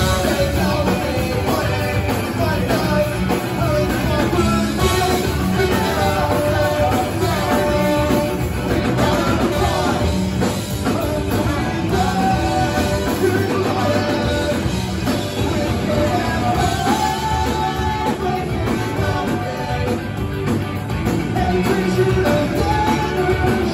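A live ska-punk band playing a song: electric guitars, bass and drums, with trombone and horn lines and singing.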